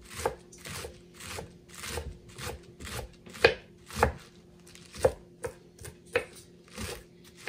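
Kitchen knife shredding lettuce on a wooden cutting board: steady, crisp chopping strokes about two a second, with two louder cuts near the middle.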